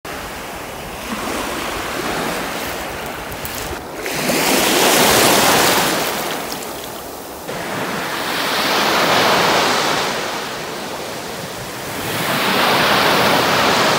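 Sea waves washing onto the shore, surging and ebbing three times, roughly every four seconds.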